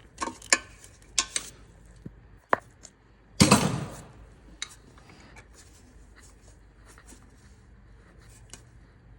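Metal hand tools and loose bolts clinking and knocking in irregular clicks, with one louder clank about three and a half seconds in, then only faint occasional ticks.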